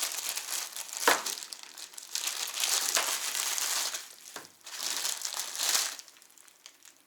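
Packaging crinkling and rustling as it is handled in several stretches, with a sharp click about a second in.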